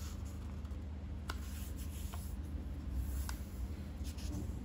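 A sheet of paper being handled and creased by hand on a tabletop, with a few short crisp ticks of the paper, over a steady low hum.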